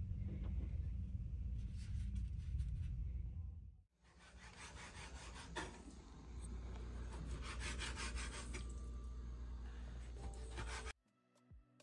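Chef's knife sawing through raw chicken breast, the blade scraping the plastic cutting board in runs of quick strokes. Before it, a steady low rumble inside a car cabin.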